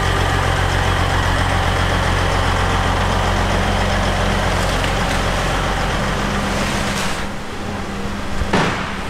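Heavy diesel machinery, a Rotochopper wood grinder and a CAT 320E excavator, running steadily with a constant low engine drone under a loud hiss. The hiss drops away about seven seconds in, and a brief loud swish comes near the end.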